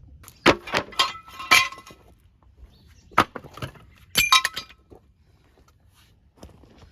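Hard metal objects, such as tools, clanking and clinking against each other with short ringing tones. There is a quick run of sharp clinks in the first two seconds, then another group about three to four and a half seconds in.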